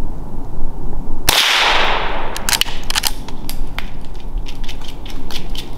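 A single gunshot about a second in, its report echoing and fading slowly through the woods, fired at a raccoon treed in a pine. A run of short sharp crackles and clicks follows.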